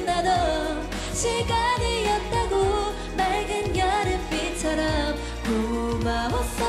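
K-pop song by a female group: sung female vocals over a pop backing track with a repeating kick-drum beat.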